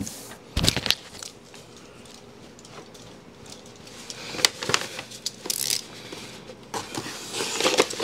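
Hands pressing and smoothing a self-adhesive vinyl wrap onto a fridge door. There is a knock with a dull thump about half a second in, a few scattered clicks and crinkles around the middle, and rubbing that builds near the end.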